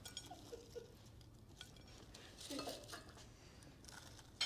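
Faint clinks and rustles of food being plated by gloved hands on china plates, with one sharper clink near the end.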